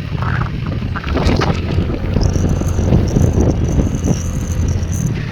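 Steady low rumble of a vehicle on the road, with wind buffeting the microphone. A thin, high, wavering whine comes in about two seconds in and stops just before the end.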